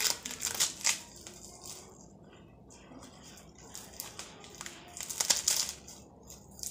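Fresh leafy greens being torn and plucked from their stems by hand, a crisp rustling and crackling of leaves and snapping stalks, loudest in the first second and again about five seconds in.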